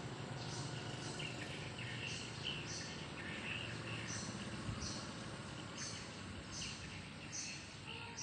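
Rural outdoor ambience: short high chirps repeating about every half second to second over a steady rushing background noise.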